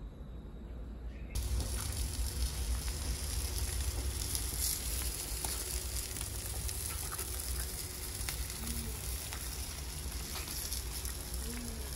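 Meat, scallops and vegetables sizzling on a barbecue grill: a steady crackling hiss that starts abruptly about a second in.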